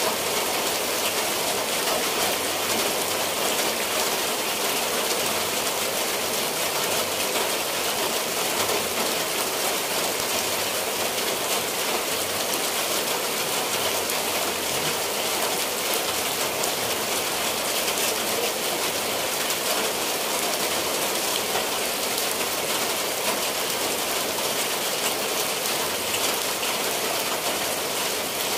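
Steady rain falling on tiled roofs and dripping from the eaves.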